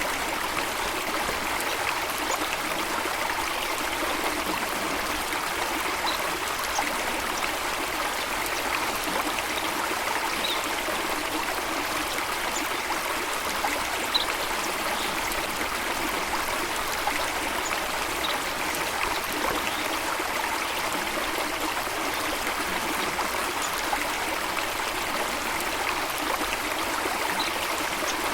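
Running water flowing steadily in a continuous rushing, trickling sound, with a few faint, brief high-pitched blips over it.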